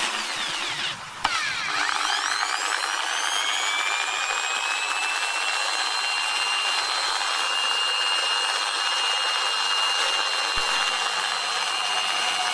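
Electric drill spinning up about a second in, its whine rising quickly in pitch and then holding a steady speed.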